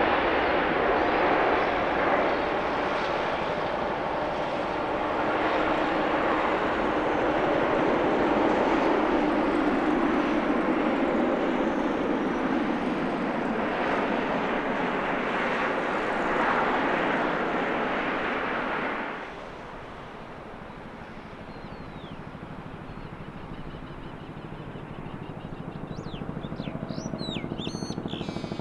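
Jet airliner engines running loud and steady, then dropping off suddenly about nineteen seconds in to a quieter low hum. A few short high chirps come near the end.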